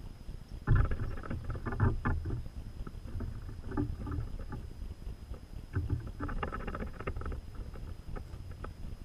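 Knocking and scrabbling of European goldfinches landing and feeding on a plastic tube seed feeder close to the microphone, in two clusters of quick clicks and thumps, one about a second in and another around six seconds in.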